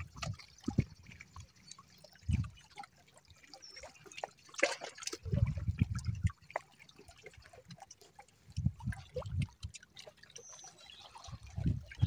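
Small sea waves lapping and trickling at the shoreline, a patter of little splashes and drips, with a few short low muffled thumps.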